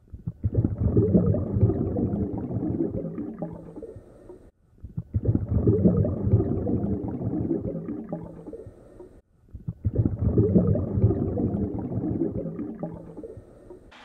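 Underwater water noise around the camera: three surges of low rushing, rumbling sound, each about four and a half seconds long, starting strongly and fading away before the next begins.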